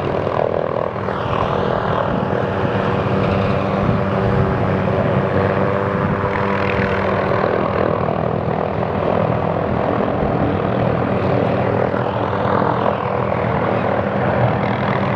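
Tree-trimming helicopter with a suspended saw, its engine and rotor running steadily at a constant pitch.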